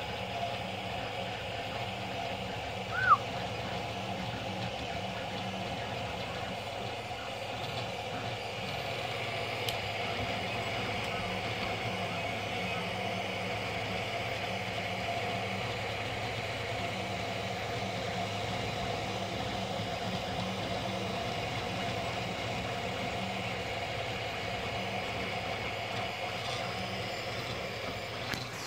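Aurora i3 3D printer running mid-print: its fans and stepper motors make a steady mechanical hum as the print head moves. A short, loud, high chirp comes about three seconds in.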